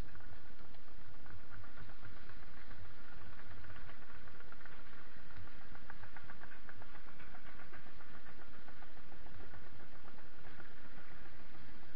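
Mountain bikes rolling down a gravel track: tyres crunching and the bike rattling in a dense run of small ticks, over a steady engine rumble from the excavator working ahead.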